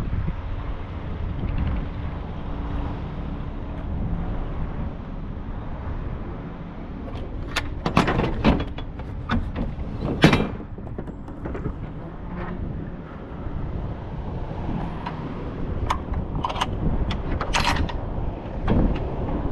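Metal clanks and clicks from a semi-trailer's rear swing door being unlatched and swung open, in two clusters: one in the middle and a second near the end as the door is swung round to the trailer's side. A steady low rumble runs underneath.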